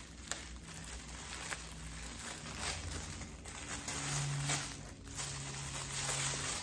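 Clear plastic clothing polybag crinkling and rustling in the hands as it is opened and the garment is pulled out, in irregular bursts over a low steady hum.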